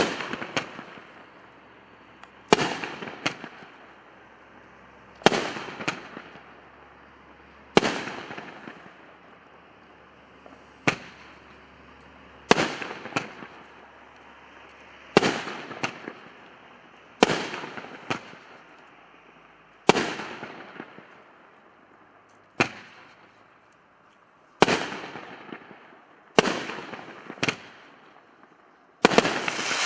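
Winda 'Cray Cray!' 500-gram fireworks cake firing its shots one after another, about every two to three seconds. Each is a sharp bang, often followed by a second bang about half a second later, then a fading tail.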